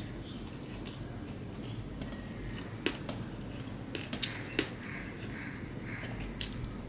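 Eating rice with fish curry by hand from a stainless steel plate: fingers mixing and squeezing the wet rice, with soft squishing and a few sharp clicks, most of them between about three and five seconds in and one more near the end.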